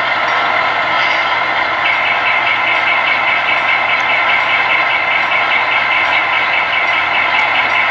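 Sound-equipped HO scale model diesel locomotive idling steadily, with a fast ticking rhythm joining about two seconds in.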